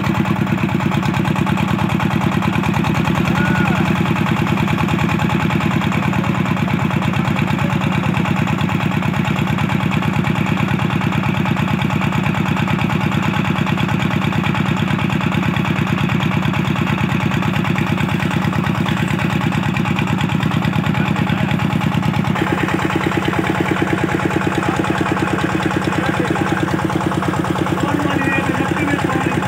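Old stationary diesel engine running steadily under load, driving a tubewell pump with a rapid, even knocking beat. The rush of water pouring from the pump's outlet pipe mixes in, brighter from about three quarters of the way through.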